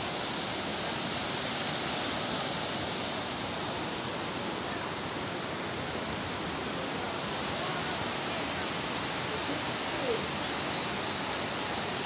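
Steady rushing of muddy floodwater flowing across flooded fields.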